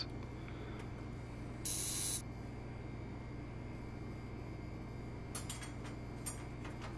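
Steady low hum with a short hiss about two seconds in, then a few light metallic clicks near the end as a perforated metal flame diffuser is set down on a gas hob's pan grate.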